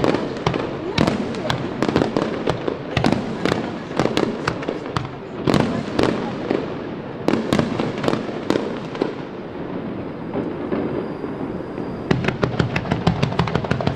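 Aerial firework shells bursting: irregular bangs and crackling, with a quick run of sharp reports near the end.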